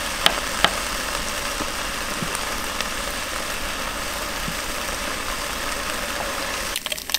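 A steady mechanical rumble and hiss that cuts off near the end, with a couple of light knife taps on a wooden cutting board about a second in.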